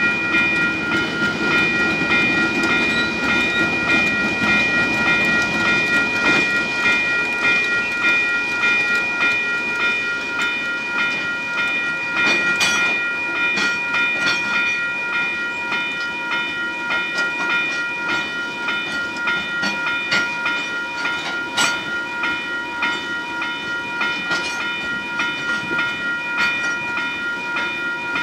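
Electronic level-crossing bell ringing in a steady rapid beat while a slow coal train crosses. A diesel locomotive rumbles past in the first few seconds, then the wagons' wheels clank over the crossing now and then.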